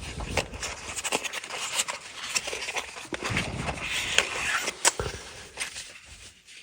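Cardboard box and sleeve being handled and opened by hand: irregular scraping and rustling with a few sharp taps.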